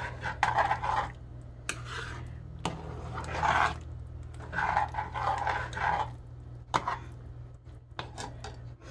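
Metal spoon stirring and scraping through a pot of biscuit dumplings, in irregular scraping strokes with a few sharp clinks of the spoon against the metal pot. A low steady hum runs underneath.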